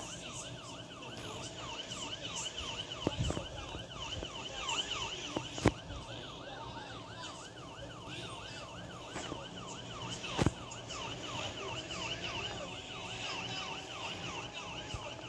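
Police car siren in a fast yelp, its pitch sweeping up and down about three times a second, with a few sharp clicks over it.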